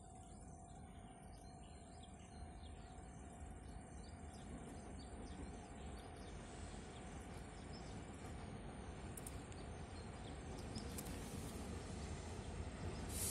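A freight train approaching from a distance: a low rumble that grows steadily louder, over a steady thin insect chirring.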